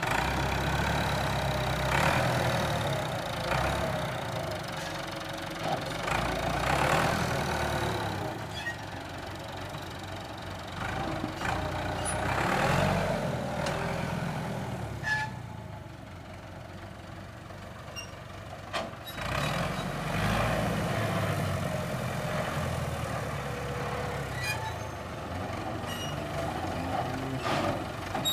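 Massey Ferguson tractor's diesel engine working under load while pulling a duck-foot tine cultivator through the soil. It runs steadily, growing fainter as the tractor moves away in the middle and louder again as it comes back near the end.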